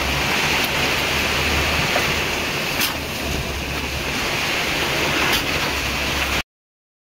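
Concrete pump delivery hose discharging concrete during a slab pour: a steady rushing noise with a low hum that pulses on and off every second or two with the pump strokes. The sound cuts off abruptly near the end.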